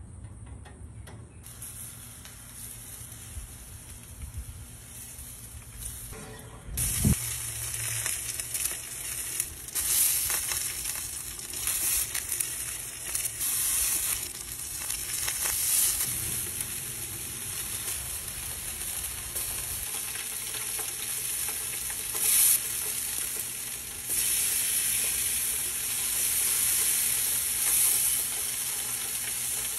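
Bacon-wrapped burgers sizzling on a smoker grate: a crackling hiss that starts faint and becomes much louder about seven seconds in.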